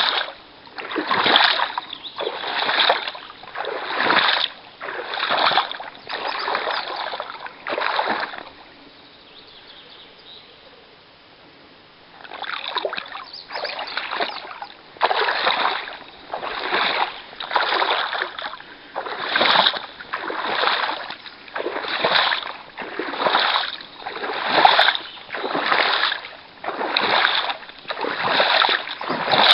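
Rhythmic splashing strokes through water, one about every second and a half, pausing for a few seconds about a third of the way in before carrying on.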